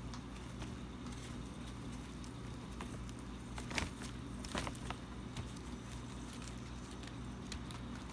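Chipmunk foraging on a crumpled plastic bag: scattered light crackles and clicks of the plastic, a few sharper ones around the middle, over a steady low hum.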